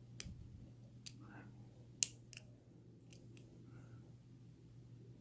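A thin lock pick probing the tiny pin tumblers of a tensioned Kryptonite padlock, making about six faint, sharp clicks spread over a few seconds, the loudest about two seconds in. The clicks come as the picker works from the first pin to the second to find and set binding pins.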